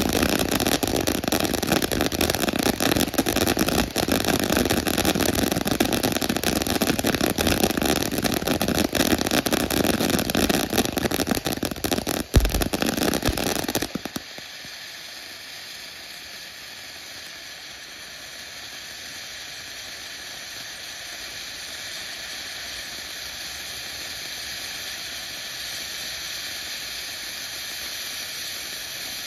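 Black Cat 'Little Big Show' fountain firework: loud rushing and crackling for about the first half, with one sharp pop about twelve seconds in. It then switches abruptly to the quieter, steady hiss of a golden spark fountain, which grows a little louder toward the end.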